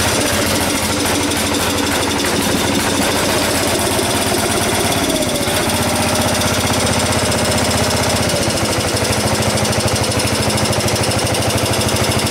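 1975 Gilson Hydro-16 garden tractor's engine running steadily with a rapid, even firing beat, freshly started on its newly fitted electric starter.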